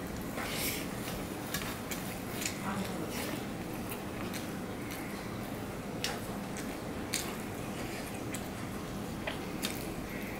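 Close-up eating sounds of a mouthful of rice and fish curry being chewed, with scattered sharp, wet smacking clicks.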